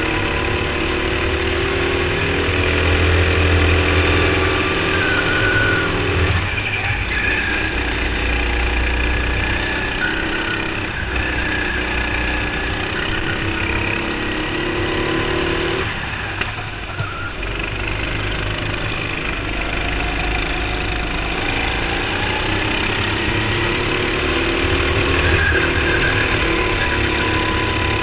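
Go-kart engine running hard, heard from on board the kart, its pitch climbing under throttle and falling away twice, about six and sixteen seconds in, before rising again, with other karts' engines close by.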